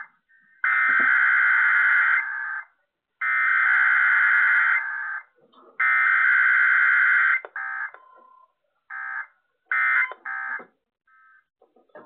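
Emergency Alert System digital header bursts played over a radio: three harsh buzzing data bursts, each about two seconds long with short gaps between them, followed by a few shorter, weaker bursts.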